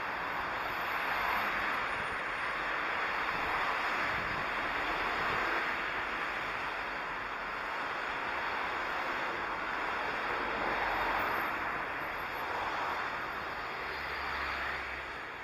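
Steady hiss of city road traffic, swelling and fading gently as vehicles pass.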